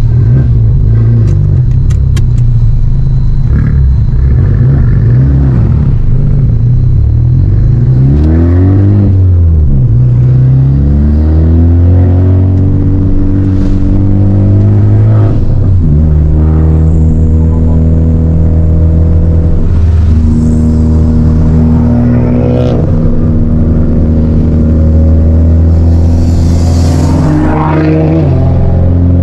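Honda Civic Type R FK8's turbocharged 2.0-litre four-cylinder heard from inside the cabin under hard driving. It revs up and drops sharply in pitch at each upshift, several times over.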